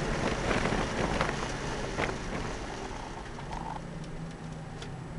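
Inside the cabin of a Nissan 350Z being driven on a circuit: an even hiss of tyre and wind noise over the low hum of its 3.5-litre V6, gradually getting quieter, with a few short sharp knocks.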